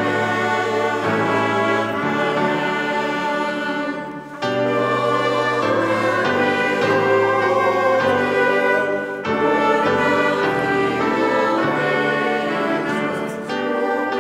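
Mixed adult church choir singing in parts with instrumental accompaniment holding sustained low notes, a brief break between phrases about four seconds in.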